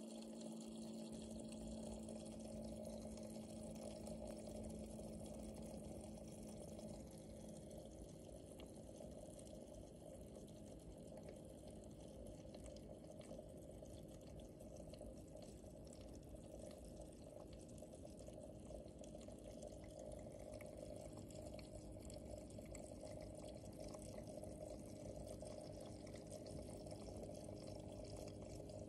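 Small aquarium's filter running: water trickling and splashing steadily into the tank, with a faint steady hum underneath.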